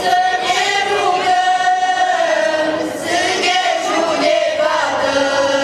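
Folk choir of mostly women's and girls' voices singing a Romanian Christmas carol (colindă) in unison and without instruments. Long held notes dip briefly about three seconds in, then another note is held.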